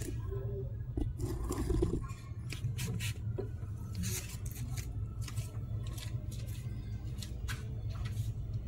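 Scattered clicks, knocks and scrapes of things being handled and set down on concrete, over a steady low background rumble.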